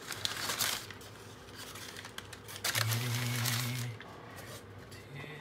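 Packaging being handled during an unboxing: several short bursts of rustling and crinkling, with a short low hum about three seconds in.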